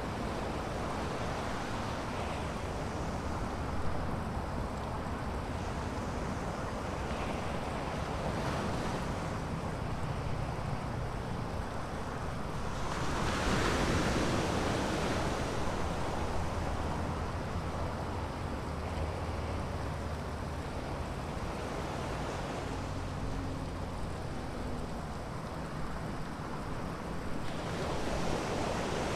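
Ocean surf breaking and washing up the beach in a steady roar, with a bigger wave rushing in about halfway through and another building near the end.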